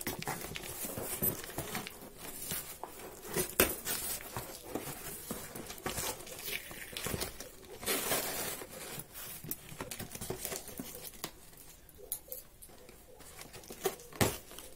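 A cardboard shipping box being opened by hand: the flaps and packing paper rustle, crinkle and tear, with scattered small knocks and scrapes. Near the end, scissors snip through the packing tape with a few sharp clicks.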